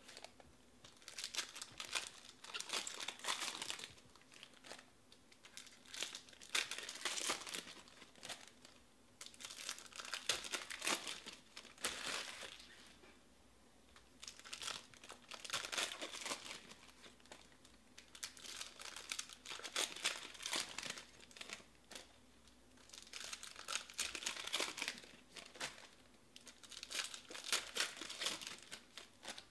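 Foil trading-card pack wrappers crinkling and tearing as they are opened by hand, in repeated crackly bursts every couple of seconds.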